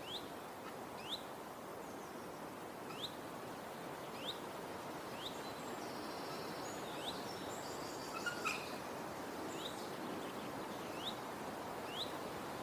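A bird repeating a short, high, downward-sliding chirp about once a second over a steady outdoor background hiss, with a few other brief higher calls partway through.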